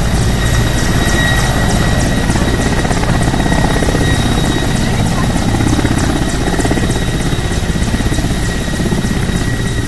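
Helicopter landing: the steady beat of its rotors under a constant high turbine whine.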